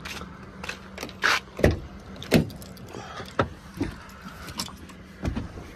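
Knocks and clanks of someone climbing into a truck cab: shoes on the metal cab steps and a hand grabbing the door grab handle. The loudest knocks come about a second and a half in and near two and a half seconds, over a steady low hum.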